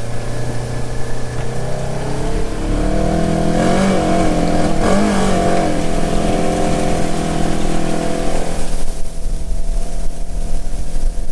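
Diesel engine of rice-harvest machinery (combine or tractor pulling a grain cart) running steadily under load, its pitch wavering briefly about four seconds in.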